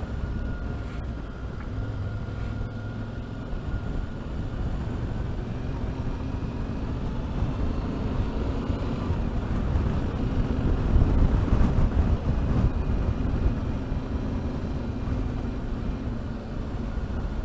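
Yamaha Ténéré 700's 689 cc parallel-twin engine running on the stock exhaust while riding, under heavy wind noise on the microphone from an open-face helmet on a windy day. The wind rumble swells about two-thirds of the way through.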